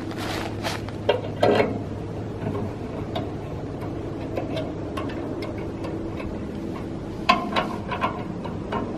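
Scattered light metal clicks and knocks as the chainsaw mill's carriage and powerhead are handled, a few near the start and a quick cluster near the end, over a steady low hum.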